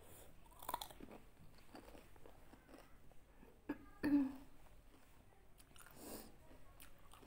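Close-up chewing of a whole pani puri, with the crisp fried shell crackling in the mouth, loudest just under a second in. Soft crunching and mouth noises follow, with a short hum-like vocal noise about four seconds in, the loudest moment.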